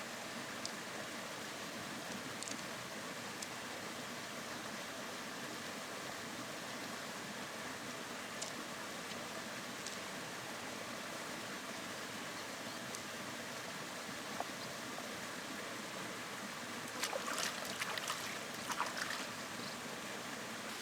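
Steady rushing of river water, with scattered faint clicks and a short spell of louder clicking and scraping near the end.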